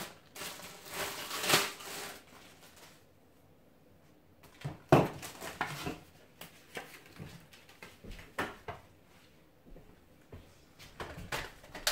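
Plastic wrapping crinkling as vacuum parts are handled, then a sharp knock about five seconds in as the wrapped vacuum wand is laid on a wooden table, followed by scattered light clicks and rustles of packaging.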